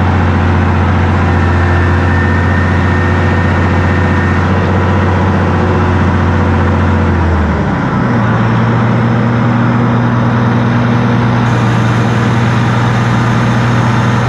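Reichdrill T-650 W water well drilling rig's engine running steadily, a low even drone. About halfway through its note shifts abruptly as a control lever on the operator's panel is worked, then holds steady at the new setting.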